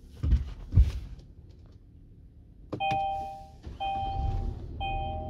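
Two dull thumps near the start, then from about halfway a car's steady two-tone signal sounding in pulses of just under a second, about once a second.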